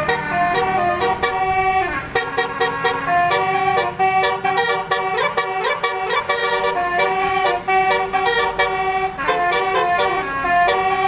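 Basuri telolet horn playing a tune, a fast run of short and held horn notes that change pitch.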